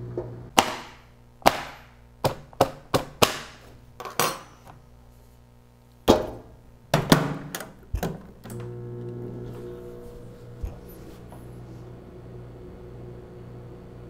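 Sharp clicks and knocks from the control dials of a mechanical-dial microwave oven as they are set. Then, about two-thirds of the way in, the oven switches on and runs with a steady electrical hum, set to defrost a frozen pizza.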